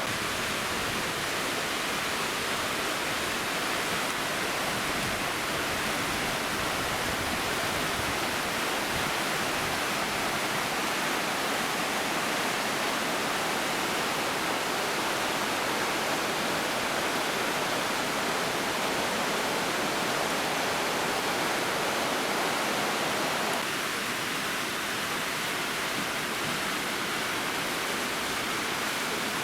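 Waterfall: a steady, even rushing of falling water, its tone shifting slightly and a little quieter about three-quarters of the way through.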